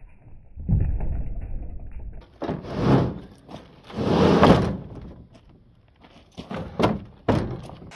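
Heavy rough-sawn ash slab sliding over a pickup truck's ribbed plastic bed liner as it is pushed in: two long scrapes, the loudest about three and four and a half seconds in, then a few short knocks and scrapes near the end.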